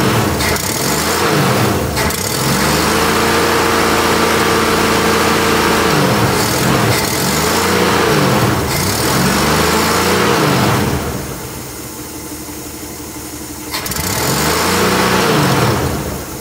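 1967 Ford Econoline's straight-six engine, just after a carburettor rebuild, being revved up and held, then let down to idle, then blipped once more and settling back to idle near the end. The idle is smoother after the rebuild.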